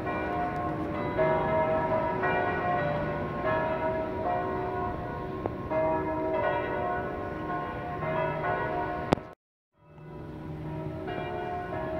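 Church bells ringing, several pitched bells struck over and over so that their tones overlap and hang. A sharp click a little after nine seconds, then the sound cuts out for about half a second before the bells return.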